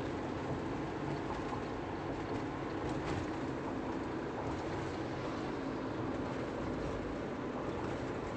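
Steady rumble of a moving vehicle's road and engine noise, heard from on board.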